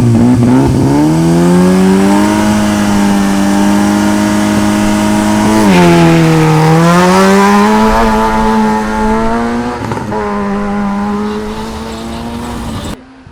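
Competition car engine under hard acceleration: the pitch climbs over the first two seconds and holds high. Around six seconds in the revs dip and build again, then hold. Just before the end the sound drops away abruptly.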